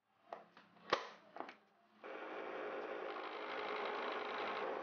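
A few sharp taps and clicks of hand tools on a scrap wood block, the loudest about a second in. Then, from about two seconds in, a bench drill press runs with a steady hum, its twist bit boring into the block.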